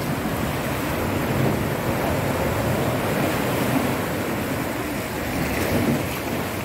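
Sea surf surging and washing over rocks into the mouth of a shoreline sea cave: a steady rushing, churning sound of breaking water.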